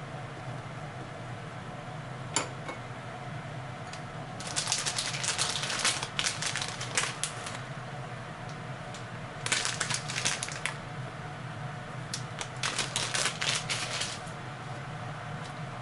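Bursts of rapid, light clicking and clattering from hard objects being handled in a kitchen. There is one click, then three runs lasting one to three seconds each, over a steady low hum.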